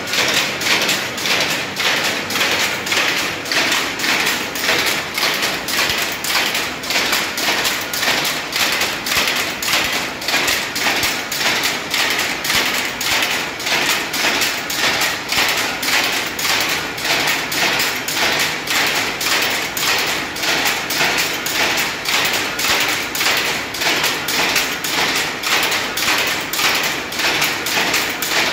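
Jacquard power loom weaving a silk saree, running at a steady rhythm: a mechanical clatter of even knocks, about two a second.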